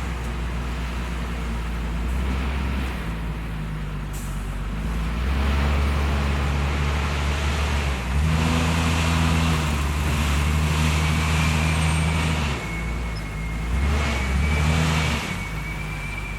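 JCB 432ZX wheel loader's diesel engine running and revving up under load in three surges, then dropping back, with a thin steady high whine coming in partway through.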